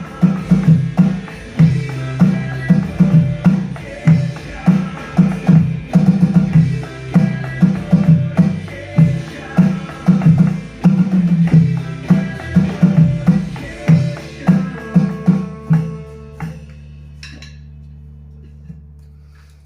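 Drum kit played along to a rock recording from a speaker, a steady beat of hits at about two a second. The drumming stops about 14 s in, and a low held note fades out, with one small click near the end.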